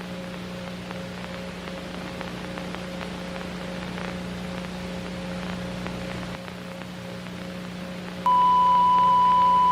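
Low steady electrical hum under a hiss of static, then about eight seconds in a loud, steady single-pitched alert beep starts and holds, the attention tone of an emergency broadcast.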